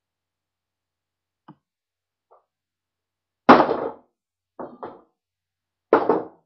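Loud thumps, like knocks on wood or heavy footfalls: one a little past halfway, two lighter ones in quick succession about a second later, and another loud one near the end, each with a short decay.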